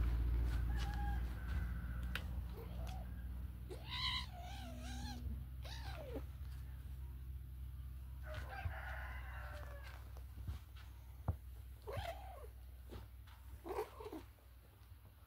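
Domestic kittens play-fighting, giving short mews and squeals about four, six, nine, twelve and fourteen seconds in, with light scuffling knocks. A low steady hum underneath fades over the stretch.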